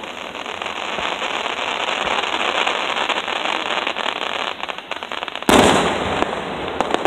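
Aerial fireworks: a dense stretch of crackling, then a shell bursting with a sharp loud bang about five and a half seconds in, followed by more crackle and a few sharp cracks near the end.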